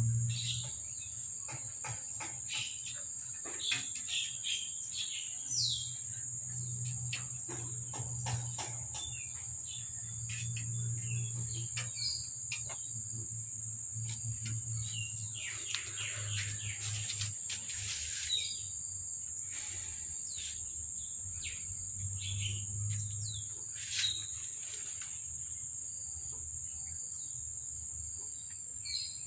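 A steady high insect drone, like crickets or cicadas, with scattered short bird chirps and clicks over it, and a low rumble that comes and goes underneath.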